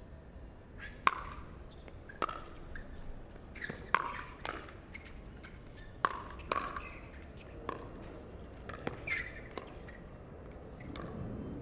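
A pickleball rally: paddles strike the hard plastic ball in a string of sharp pops, roughly one a second, with irregular spacing.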